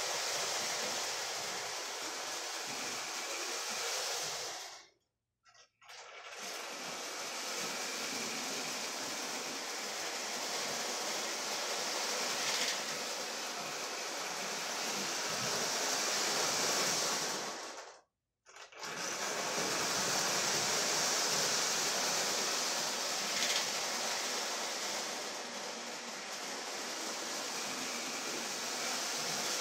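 Lionel toy steam freight train running on tinplate tubular track: a steady whirring of the locomotive's electric motor and the wheels rolling on the rails, with a few faint ticks. The sound drops out completely twice, each time for under a second.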